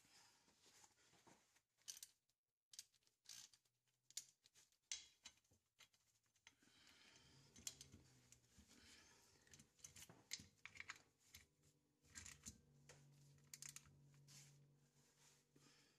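Faint handling sounds: a rag wiping the metal differential casing, then scattered small clicks of a socket ratchet threading in the differential filler plug.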